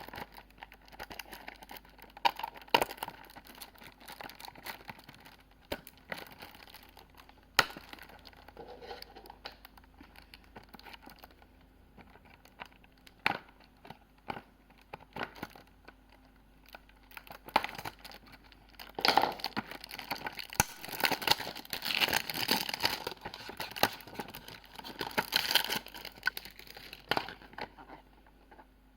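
Packaging being handled and opened by hand: crinkling and tearing with scattered sharp clicks and taps, busiest and loudest in the last third.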